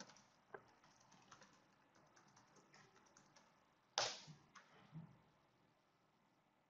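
Near silence with a few faint clicks of a computer mouse, and a short puff of noise about four seconds in.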